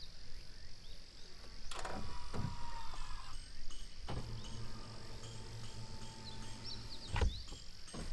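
Steady high insect chorus, broken by a few sharp knocks, about two seconds in and again near seven seconds.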